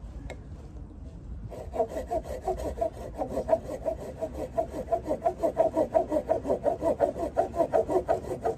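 Small hand saw cutting into a fallen branch for fatwood, starting about a second and a half in with quick, even back-and-forth strokes, about three a second.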